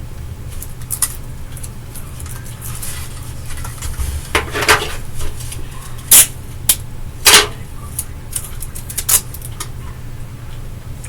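Handling noise: a run of sharp clicks, scrapes and knocks, the loudest few in the middle, over a low steady hum.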